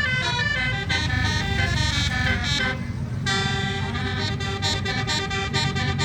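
An Indonesian bus's basuri musical air horn playing a melody of stepped notes. It breaks off briefly about three seconds in and starts again, over the bus's engine rumble.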